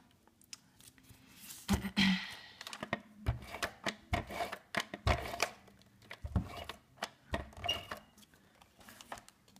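Adhesive tape runner pressed and drawn across the back of a paper circle in short strokes, with paper being handled on a cutting mat: an irregular run of short clicks and rubbing scrapes.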